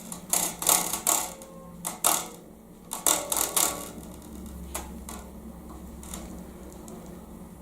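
Handling clicks and knocks from a bass guitar being moved and examined: about half a dozen sharp taps in the first three and a half seconds, then quieter, with a faint low hum.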